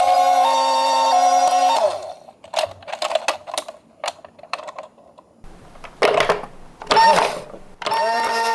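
Two-tone ambulance siren, high and low notes alternating about every half second, cuts off about two seconds in. Then comes a run of sharp clicks, knocks and rattles of die-cast Tomica toy ambulances rolling down a slope, and the siren starts again near the end.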